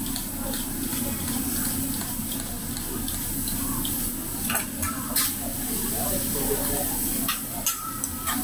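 Food sizzling on a steel teppanyaki flat-top griddle, a steady hiss. The chef's metal knife and spatula click and scrape against the griddle a few times about halfway through and again near the end.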